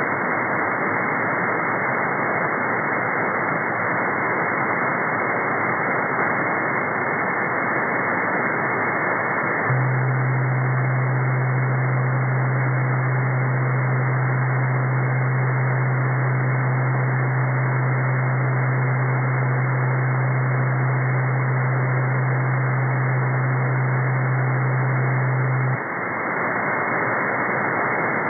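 SDRplay RSP1A shortwave receiver in upper sideband, tuned across an empty stretch of the 11-metre band: steady static hiss. A faint high whistle comes and goes in the first third. Then a strong, steady low buzzy tone holds for about sixteen seconds and cuts off suddenly, leaving the hiss.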